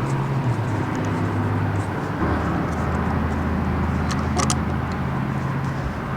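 Electric heat gun running with a steady hum that drops in pitch about two seconds in and cuts off near the end, with a couple of light clicks in between.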